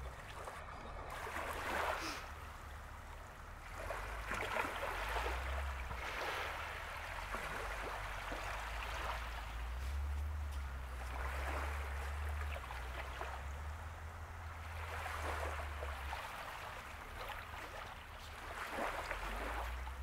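Small waves washing in every two to four seconds, each a short rushing swell, over a low steady rumble.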